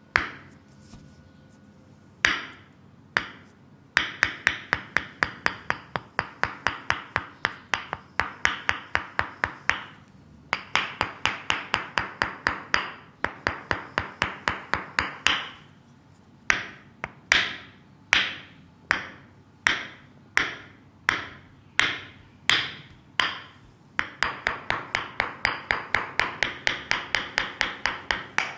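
Percussive massage strikes on a leg, sharp slapping knocks that come in quick runs of about three to four a second, with slower single strikes a second or so apart in the middle.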